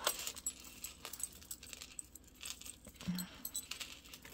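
Metal costume jewelry clinking and jangling as pieces are picked up and sorted by hand: a scatter of light, irregular clicks.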